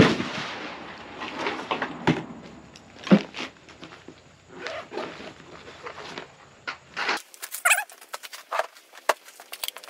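Gear being handled and set down on a wooden shooting bench: scattered knocks, clunks and rustling. There is a sharp bang right at the start, a loud knock about three seconds in, and from about seven seconds small clicks with a short squeaky chirp.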